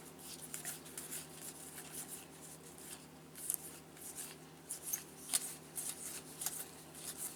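Baseball trading cards being flipped through by hand: a run of soft flicks and slides of card against card, with a few sharper flicks in the second half.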